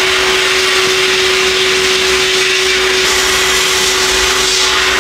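Sandblast cabinet gun blasting abrasive grit onto a steel brake backing plate: a loud, steady hiss of air and media, with a steady tone beneath it.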